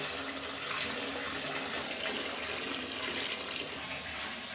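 Bath mixer tap running into a bathtub, a steady rush of water filling the bath.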